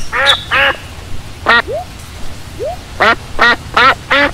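Duck quacking in short, repeated calls: a couple at the start, a pause, then four quicker quacks near the end.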